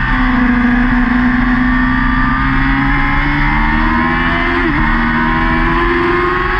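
Yamaha R6 600 cc inline-four engine, heard onboard, running at high revs under power through a corner, its pitch climbing slowly with a brief dip about three-quarters through. Steady wind rush lies under it.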